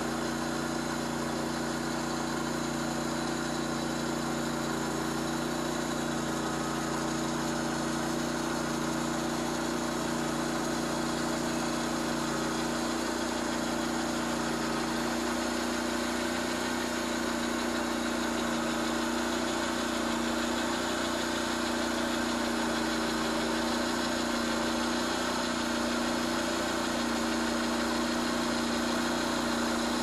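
Vallee Sawmills Green Monster Wide portable bandsaw mill running steadily as its engine-driven band blade cuts through a wide maple log. A constant engine hum sits over a hiss of cutting, with no starts or stops.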